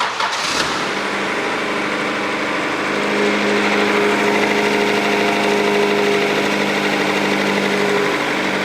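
1996 Acura Integra's 1.8-litre DOHC four-cylinder engine idling steadily just after start-up, a little louder from about three seconds in. It is running on all four cylinders with a new distributor cap and rotor, the misfire gone.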